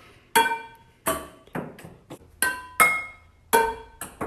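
Tableware clinking: about seven sharp strikes at an uneven pace, each ringing briefly at a clear pitch.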